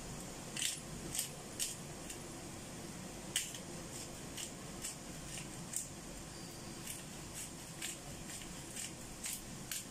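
Hand pepper mill grinding black peppercorns: a run of short, crisp clicks, irregular at about two a second, as the mill is twisted.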